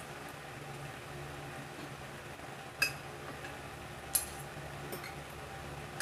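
Metal fork and spoon clinking against a plate while eating: two sharp clinks, about three and four seconds in, and a fainter tap soon after, over a low steady background hum.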